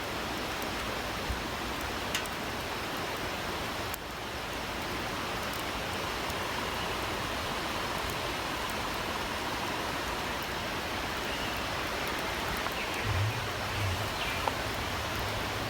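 Freshly lit campfire of pine needles and pine cones burning, a steady rushing hiss with a few sharp crackles.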